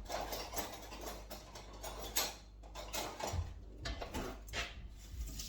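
Irregular small clicks, taps and rustles of kitchen items being handled, with a couple of soft low knocks.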